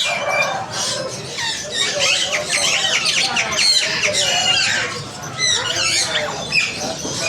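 A pair of African grey parrots calling and chattering: a busy run of quick rising and falling whistles, squawks and speech-like babble that keeps going without a break.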